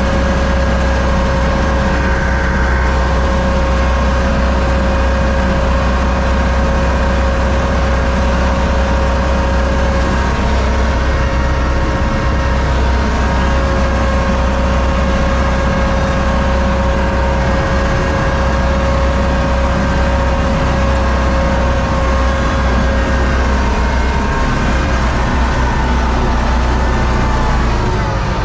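Universal U650 tractor's four-cylinder diesel engine running steadily under load while pulling a seed planter, heard from inside the cab. Near the end the engine note drops as the revs come down.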